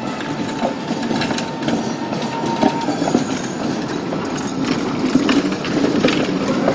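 Tatra T3 tram rolling over a track junction: steel wheels rumbling and knocking irregularly over the rail crossings and switches, with a thin steady whine that stops about three seconds in.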